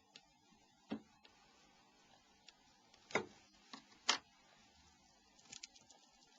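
Faint, scattered small clicks and taps from handling the parts of a Nokia N91 mobile phone during disassembly, as its hard-drive assembly is lifted off: a single click about a second in, two louder ones a little past three and four seconds in, and a quick little cluster near the end.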